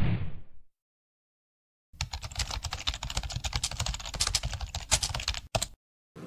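A short whoosh sound effect, then after a pause about three and a half seconds of rapid computer-keyboard typing clicks, the typing sound effect of a title being typed out letter by letter. The typing stops abruptly after one last short burst.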